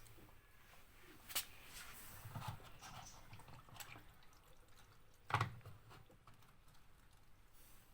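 Water dripping and trickling faintly, with a few light knocks, the loudest about five seconds in.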